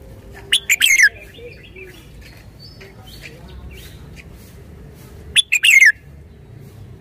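Red-whiskered bulbul singing: two short, loud phrases of quick notes, the first about half a second in and the second near the end, each ending in a falling note, with softer chirps between.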